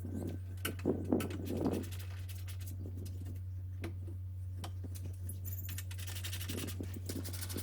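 Light knocks and clicks of a plastic aftermarket headlight unit being pushed into place on a Suzuki Swift's front end, mostly in the first two seconds, then a rapid scratchy rattle for about a second and a half near the end, over a steady low hum.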